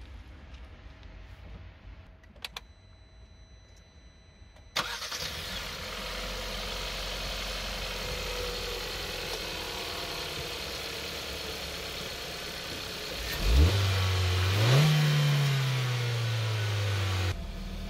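Kia Sportage's 1.6 GDI four-cylinder petrol engine starting after a couple of faint clicks, about five seconds in, then idling steadily with a light whine. Near the end it is revved up twice, the second time higher, and drops back to idle.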